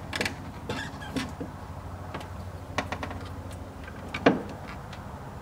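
Light metallic clicks and taps of a custom strut brace's rods and bolts being handled and fitted, with one sharper click a little past the middle, over a steady low hum.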